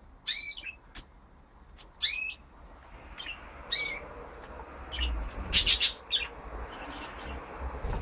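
Young budgerigars chirping: three short, sweeping contact chirps about a second and a half apart, with light clicks and taps in between. About five and a half seconds in comes a brief, much louder harsh squawk.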